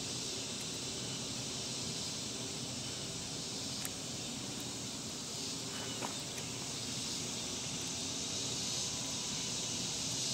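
Steady high-pitched drone of insects outdoors, with a couple of faint clicks from handling a small metal carburetor, about four and six seconds in.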